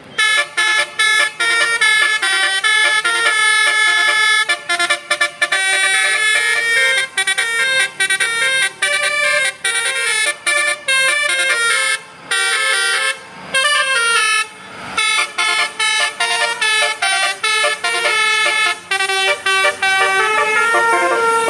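Bus's Basuri telolet horn, an electric multi-tone horn, playing a loud, rapid tune of short stepped notes, with a few brief breaks past the middle.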